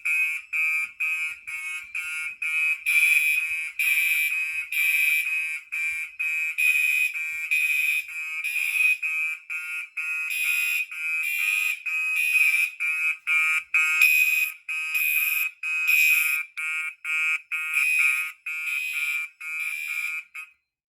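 Fire alarm horns, a Gentex SHG horn-strobe and a Gentex Commander 3, sounding together in sync in march-time pulses of about two blasts a second: the system in alarm from a pulled pull station. The horns cut off suddenly near the end.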